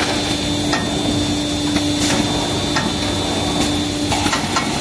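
Toilet paper and kitchen towel rewinding line running: a steady machine noise with a held hum, broken by sharp clacks every second or so. The hum stops near the end.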